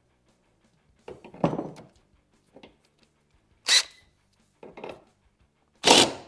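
Ryobi 18V cordless drill running a step bit into the car's sheet-metal body in several short bursts of a second or less, the loudest near the end.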